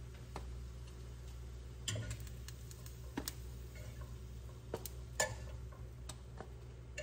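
A metal fork clicking and tapping against a nonstick frying pan and plate as cooked bacon strips are lifted out: half a dozen sharp, separate clicks over a steady low hum.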